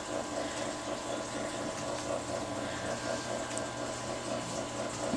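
Steady indoor background noise: a constant low machine hum under an even hiss, with no distinct events.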